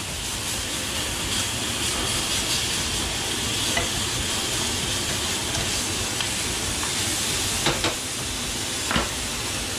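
Fillet steaks sizzling steadily in a very hot frying pan just after being turned to sear the second side, with two short clinks of metal tongs against the pan near the end.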